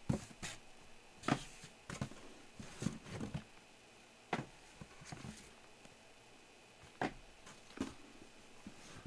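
Sealed, shrink-wrapped trading-card boxes being handled, stacked and set into a cardboard case: irregular light knocks and short scrapes, busiest in the first few seconds and then more spread out.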